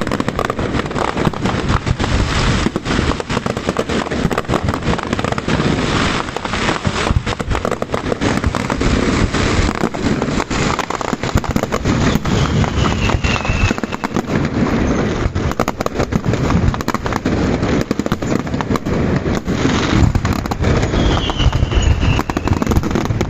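Aerial fireworks display: a dense, unbroken barrage of cracks and bangs, with a short falling whistle twice.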